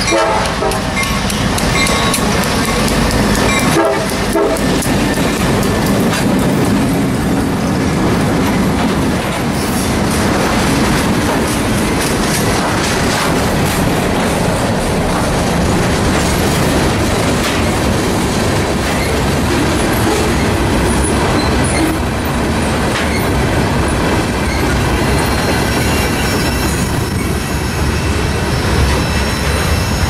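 Freight train horn blowing a chord at the start, with one more short blast about four seconds in, as the EMD diesel locomotives go by. Then a long string of covered hopper cars rolls past with a steady clatter of wheels on rail, and faint wheel squeal near the end.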